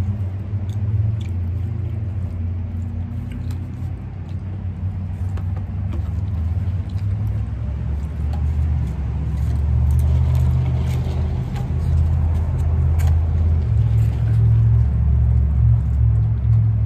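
Steady low mechanical rumble and hum of a running motor, with a few faint clicks and taps from eating off takeout plates.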